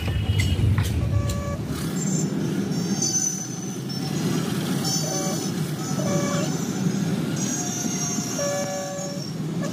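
A car's engine and road noise heard from inside the cabin in dense town traffic, with repeated short vehicle horn toots at several different pitches from the surrounding traffic.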